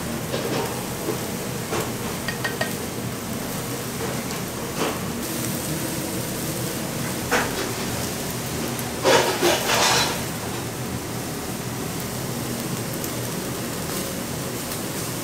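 Chicken pieces sizzling steadily on a charcoal grill as tare sauce is brushed over them, with scattered light clicks and a louder brief burst about nine seconds in.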